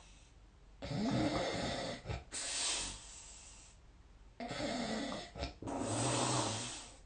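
A sleeping person snoring loudly: two full snoring breaths about three and a half seconds apart. Each is a rattling, buzzing snore followed by a breathy rush of air.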